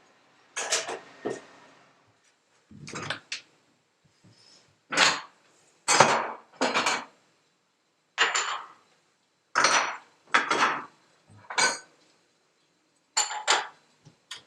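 Dishes and cutlery clinking and clattering as they are handled: a dozen or so short, separate knocks and clinks, about one a second, with quiet gaps between them.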